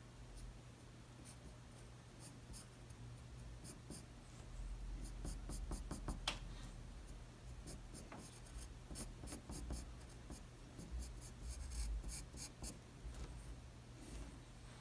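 Pencil drawing on paper: many short, scratchy strokes in quick runs as the lines and shading of the figure are laid down, busier from about four seconds in.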